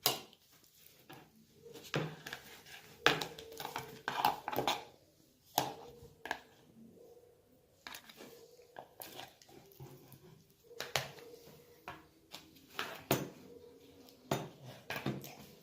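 Spoon clinking and scraping against a bowl at irregular intervals as slime is stirred.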